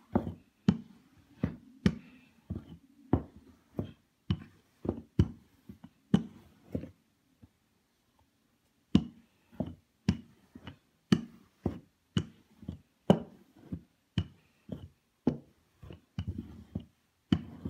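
Wooden rolling pin knocking against the countertop with each back-and-forth stroke while rolling out pastry dough: a steady series of sharp knocks, one or two a second, with a short break about halfway through.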